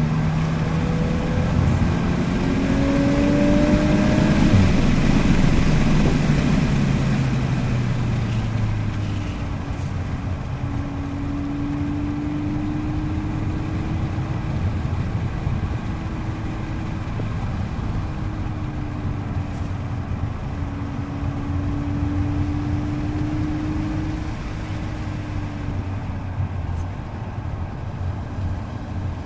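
Volkswagen Mk8 Golf R's turbocharged 2.0-litre four-cylinder, heard from inside the cabin, pulling with rising pitch for the first few seconds. It then drops in pitch as it comes off the throttle and settles into a steady drone over constant road noise.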